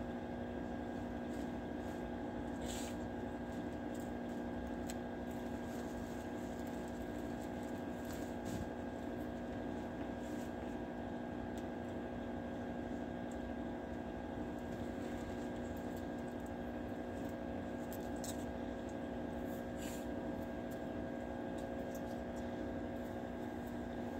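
Steady electrical hum made of several unchanging tones, with a few faint clicks here and there.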